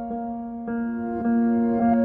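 Instrumental background music, with held chords whose notes change every half second or so.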